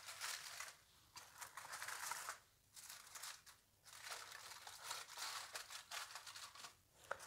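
Cling film and the aluminium foil beneath it crinkling faintly in short on-and-off rustles as hands smooth the wrap and tuck its edges down into a foil-lined tray.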